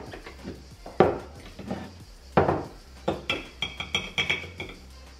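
A metal spoon scooping sugar and salt from ceramic canisters and knocking against them and against a stand mixer's stainless steel bowl. There are two sharper knocks, then from about halfway a quick run of ringing clinks.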